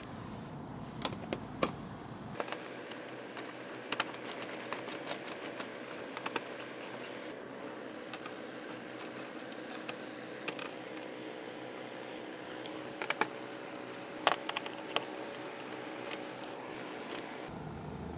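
Hand ratchet clicking in short runs as it backs out 10 mm bolts under a car's front bumper, with a few sharper clicks, over a faint steady hum.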